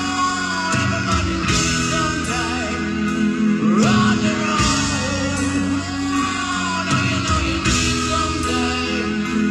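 Live rock band playing a slow ballad: a male singer sings over piano, electric guitar and drums.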